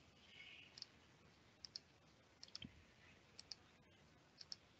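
Near silence with faint computer mouse clicks, mostly in close pairs, about once a second.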